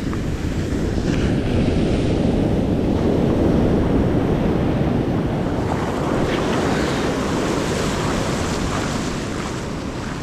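Ocean surf washing in on the beach, with wind buffeting the microphone; the rush swells about three seconds in and slowly eases.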